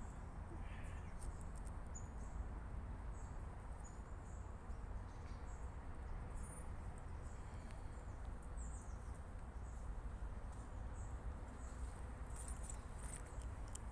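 Woodpecker pecking at an oak, a powerful knocking in irregular strikes, over a steady low rumble. Faint short high bird chirps come through now and then.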